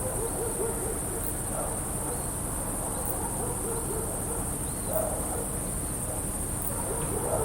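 Crickets chirping in a steady, high-pitched chorus. A faint distant dog bark comes about five seconds in.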